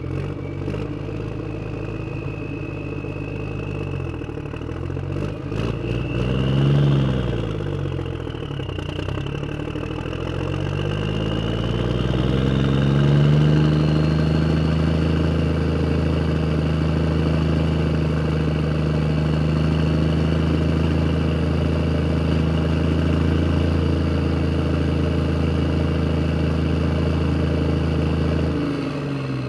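An engine revs up and down about seven seconds in, climbs again a few seconds later, then runs steadily at idle and cuts off suddenly shortly before the end. A few light clicks near the start.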